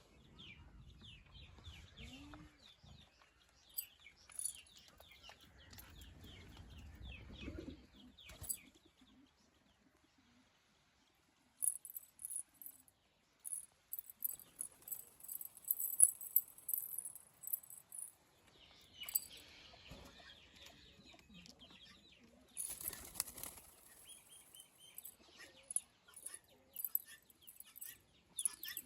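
Roller pigeons' wings flapping in repeated bursts, with a low rumble over the first eight seconds and a brief lull before the flapping picks up again.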